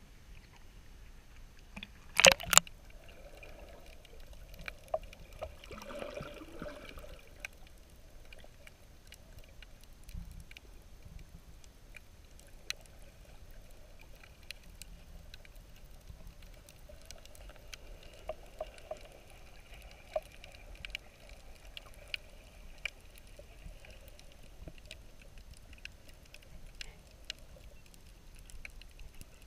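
Sea water heard through an action camera's waterproof housing as it goes under: a short loud burst of splashing and knocks about two seconds in, a swirl of water around six seconds, then muffled underwater sound with scattered faint clicks and crackles.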